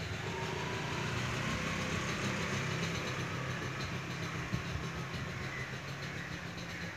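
Steady low mechanical hum over a constant hiss, with one brief knock about four and a half seconds in.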